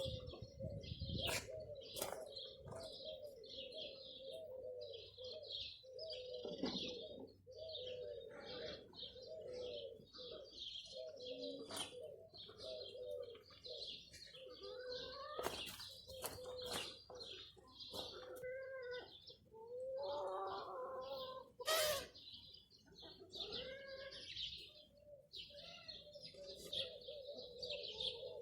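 Doves cooing over and over in a low, wavering pattern, with small birds chirping and twittering higher up throughout. A few sharp clicks break in, the loudest about twenty-two seconds in.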